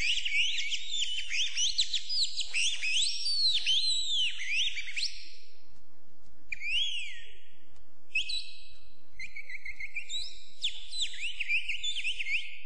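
High bird-like whistled calls: many quick chirps that slide up and down, then a brief lull about halfway through, then trilling whistles at a lower, steadier pitch.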